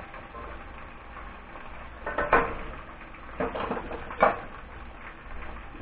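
Catfish nuggets sizzling as they deep-fry in oil in a cast iron skillet. Metal tongs clink against the pan in three short clatters, about two seconds in and twice more between three and a half and four and a half seconds.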